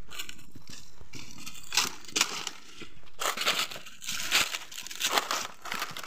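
Footsteps crunching and crackling through a thick layer of dry fallen leaves, in irregular steps about two a second from about two seconds in.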